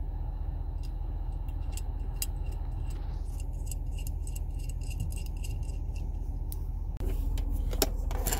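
Small metallic clicks and scrapes of a threaded coaxial antenna connector being screwed by hand onto a cell phone signal booster's port, over a steady low rumble. Near the end comes a louder clatter as a cigarette-lighter power plug is pushed into its socket.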